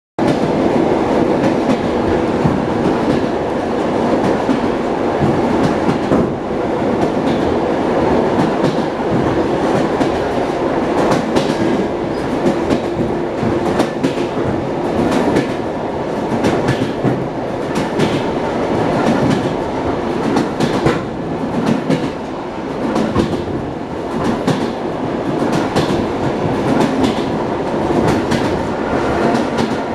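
ED9M electric multiple unit running at speed, heard inside the carriage: a steady rumble with the repeated clickety-clack of wheels over rail joints.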